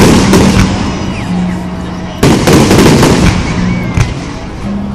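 Aerial fireworks shells exploding overhead: a loud burst right at the start that trails off in crackling, then a second loud burst a little over two seconds in, followed by dense crackling from glittering shells.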